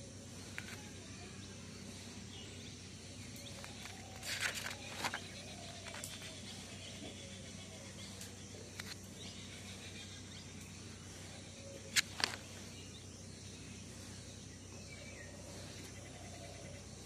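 Paper pages of a spiral-bound notebook being turned by hand: a rustling turn about four to five seconds in and a sharper, louder flip about twelve seconds in, over a steady low hum.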